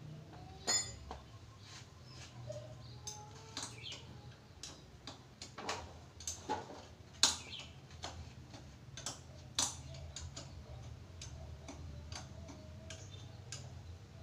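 Irregular metallic clicks and clinks of hand tools (wrenches and sockets) working on an old Honda Supra X motorcycle engine as it is taken apart. A few louder, ringing clinks stand out: one about a second in and two more past the middle.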